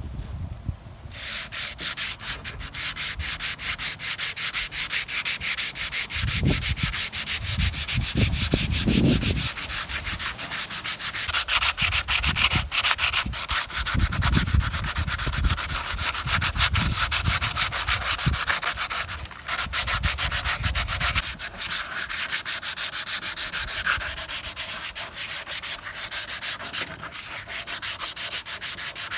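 Sandpaper rubbed by hand over the bare wooden stock of an old pellet gun, a continuous rasping hiss of quick back-and-forth strokes. Low rumbling bumps come and go through the middle.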